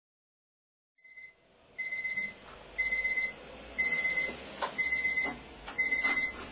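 Bedside alarm clock ringing with a high electronic beep, about once a second, each beep roughly half a second long. A few faint clicks come between the later beeps.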